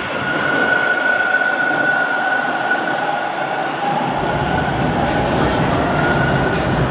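Toronto TTC subway train at a station platform: a steady rumble with a high whine running through it. A deeper rumble joins about four seconds in.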